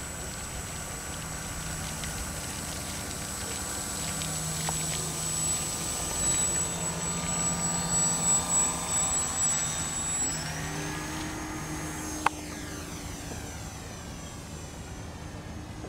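Electric motor and propeller of a Flyzone Switch RC floatplane running with a steady high whine, swelling louder through the middle and then easing off. A single sharp click comes about three-quarters of the way through.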